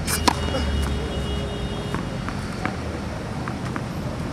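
Tennis serve: the racket strikes the ball with one sharp pop about a quarter second in, followed by a few faint taps, over a steady low background rumble.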